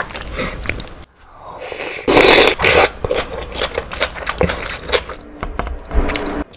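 Close-miked mukbang eating sounds of budae-jjigae with ramen noodles: wet chewing and small clicks, with a loud slurp about two seconds in.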